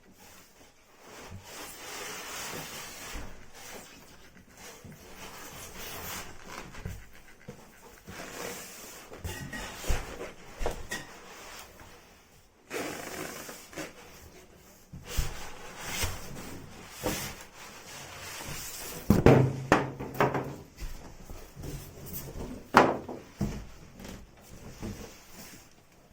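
Irregular handling noise: rubbing and rustling broken by a series of knocks and clicks, the loudest knocks about 19 and 23 seconds in.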